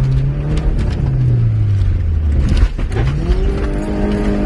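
Subaru Forester's EJ22 flat-four engine working hard off-road: the revs sag over the first couple of seconds, break off briefly near three seconds, then climb and hold higher. Scattered short clicks and knocks run over it.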